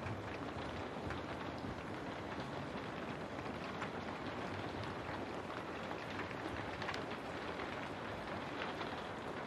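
Steady rain falling: an even hiss dotted with small drop ticks, with no change in strength.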